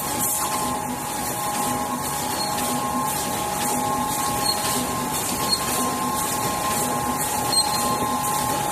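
Full-servo rotary tube screen printing machine running: a steady two-note whine over a busy mechanical clatter, with a regular pulsing cycle and light ticks.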